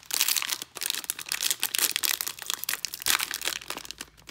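Plastic wrapper of a trading-card cello pack crinkling loudly as hands work it open, with many sharp crackles.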